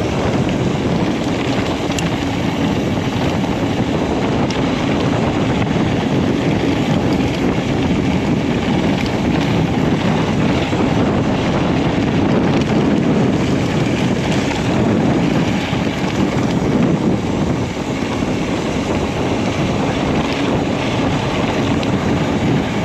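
Mountain bike riding downhill on a dirt and gravel track: a steady rumble from its Hutchinson Toro 29x2.25 knobby tyres rolling over the ground, with wind rushing over the microphone and a few faint clicks and rattles from the bike.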